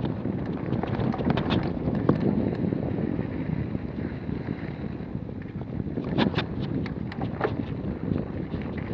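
Mountain bike rolling fast down a rough dirt trail: wind rushes over the camera's microphone, and the bike rattles and knocks over the bumps, with a cluster of sharp clacks around the middle.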